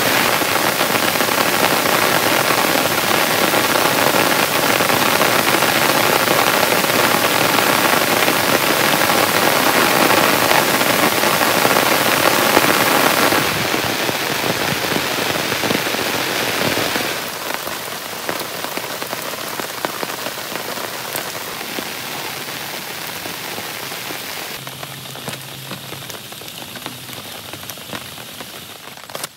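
Heavy rain pouring down in a dense, steady rush. About 13 seconds in it drops in level, and again at about 17 seconds, after which it is lighter and single drops can be picked out.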